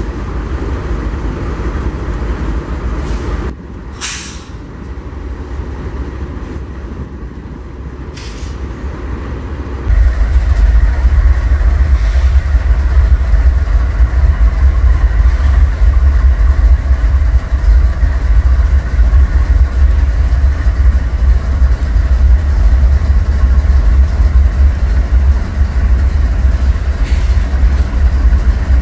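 GE freight diesel locomotives rumbling past with wheels running on the rails. A short air hiss comes about four seconds in. About ten seconds in the rumble jumps much louder and heavier and stays steady.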